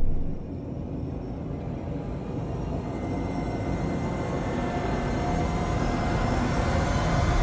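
Cinematic logo-intro sound design: a low, rumbling swell that slowly grows louder, with held tones joining about three seconds in.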